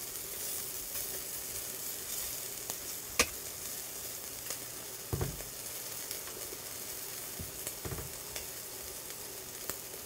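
Slices of beef chuck flap (salchi-sal) sizzling steadily on a barbecue grill. A sharp click comes about three seconds in, and a couple of soft knocks follow later.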